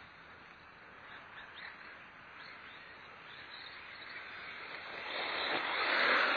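Electric RC monster truck driving over loose dirt: its motor and tyres are faint while it is far off, then grow much louder over the last two seconds as it comes close.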